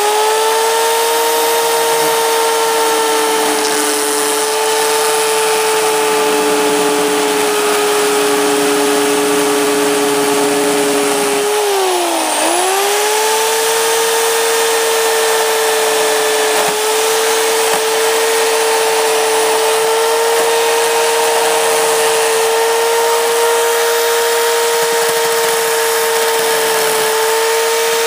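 Bauer 16-inch electric chainsaw running flat out with a steady, high motor whine and chain noise as it chews through a high-heeled shoe. About twelve seconds in the pitch sags briefly and comes back up, the motor slowing under load in the cut.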